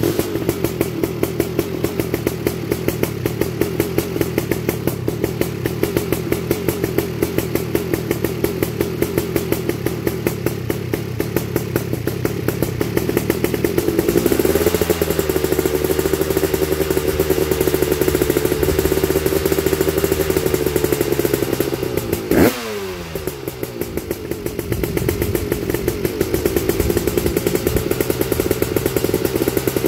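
A 1987 Honda TRX250R's two-stroke single-cylinder engine fires up and runs with a fast pulsing beat, on a break-in heat cycle. About halfway it is held at a steadier, higher speed, gives one sharp rev about three-quarters through, then drops back and climbs again.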